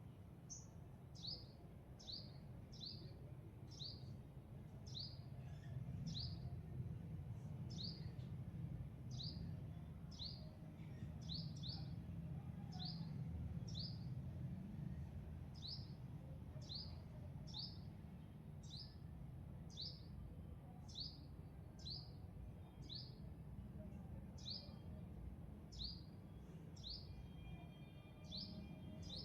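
A bird repeating a short, high chirp that slides down in pitch, about once a second, over a steady low rumble.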